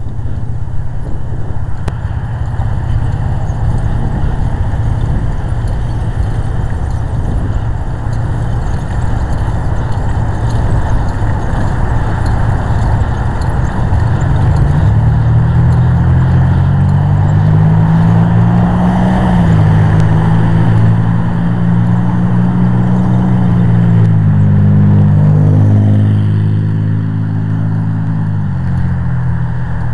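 A motor vehicle running, with a steady low rumble throughout. About halfway in, an engine hum comes up, shifts pitch a few times, and drops away near the end.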